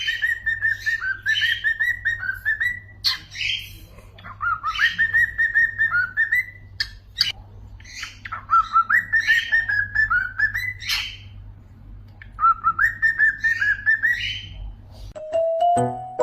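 Cockatiel whistling its song: four phrases of warbling whistles, each rising and then holding, about three seconds long, with short sharp chirps between them over a low steady hum. Music with bright, chiming notes comes in near the end.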